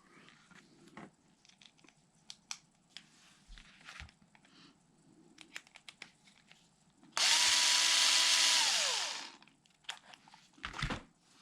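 Light clicks and taps of small parts and screws being handled, then about seven seconds in a cordless power driver runs steadily for about two seconds and spins down, working a screw on the truck's ESC and fan mount.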